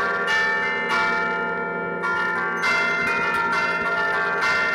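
Church bells rung from a baton keyboard (suono a tastiera): the fixed bells' clappers are struck in turn to play a tune. Each strike rings on and overlaps the next, heard close up in the belfry.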